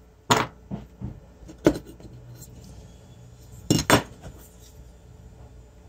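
Sharp clacks and clicks of hard parts being handled on a workbench: a loud clack just after the start, lighter ones around a second in, and a loud double clack near four seconds.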